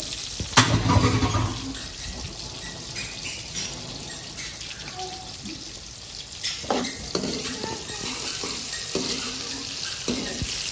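Sliced onions frying in hot ghee in a large metal karahi, a steady sizzle, with a knock about half a second in and a ladle clinking and scraping against the pan from about six and a half seconds on. The onions are frying hot enough to start burning.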